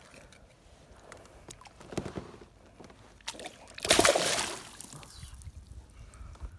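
A largemouth bass released back into the lake splashing loudly beside a kayak about four seconds in. A few lighter knocks and a thump of handling come before it.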